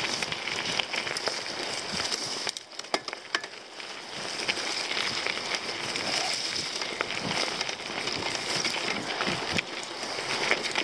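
Mountain bike rolling down a dirt singletrack covered in dry leaves and stones: tyres crackling over the leaves and gravel, with clicks and rattles from the bike. It quietens briefly a few seconds in.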